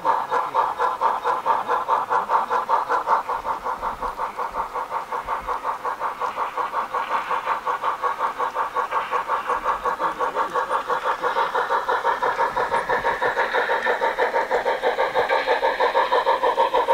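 Sound unit of a large-scale model HSB class 99 narrow-gauge steam locomotive playing a steady steam chuff through a small loudspeaker, about five exhaust beats a second, as the locomotive runs.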